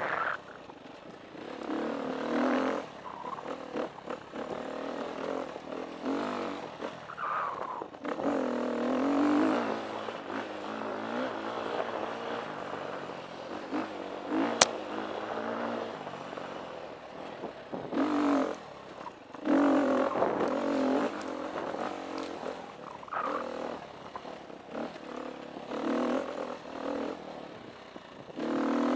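2013 KTM 350 EXC's single-cylinder four-stroke engine revving up and falling back again and again as the throttle is worked on a dirt trail, with rattling from the bike over rough ground. A single sharp click cuts through about halfway.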